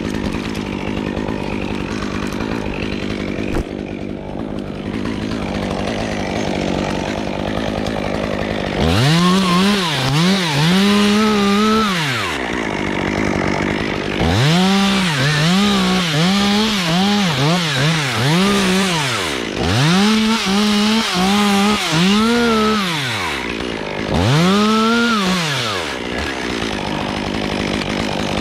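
Stihl MS 201 TC top-handle two-stroke chainsaw running low at first. From about nine seconds in it is revved hard in four groups of bursts, each climbing to full speed and dropping back, as it cuts limbs off the trunk.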